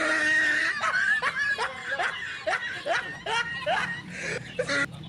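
Laughter: a drawn-out first note, then a run of quick falling chuckles, about three a second, trailing off near the end.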